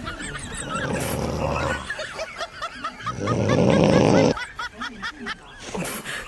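Snoring: two raspy snore-like breaths, one about half a second in and a longer, louder one around three seconds in, over a wavering warbled tune.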